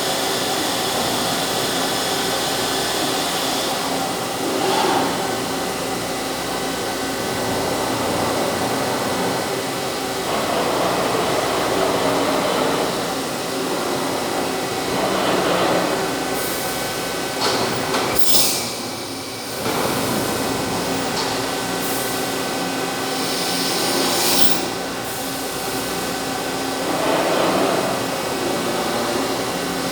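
CNC machine running: a steady mechanical drone with several held tones, swelling and easing in places, with short hissing bursts a little past the middle and again later.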